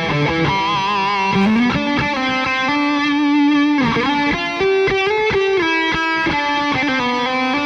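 Distorted electric guitar played through an amp whose speaker is miked inside a Box of Doom isolation cabinet, playing a lead line of held notes with slides and vibrato.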